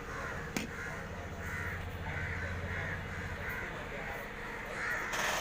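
Crows cawing over and over, about two calls a second, over a faint low hum that fades out about three seconds in.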